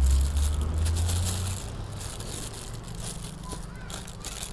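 Plastic bag crinkling and crackling as it is pulled open by hand. A low rumble runs underneath for the first second and a half, then stops.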